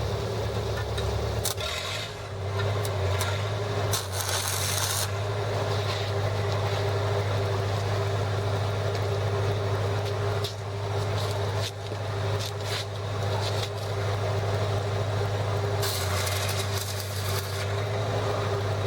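Lincoln SA-200 engine-driven welder's gasoline engine running at a steady drone. Two short bursts of crackling hiss cut in about four seconds in and after about sixteen seconds, along with scattered clicks.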